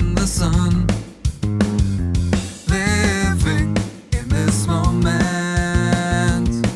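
Music: a rock song with guitar over a steady beat.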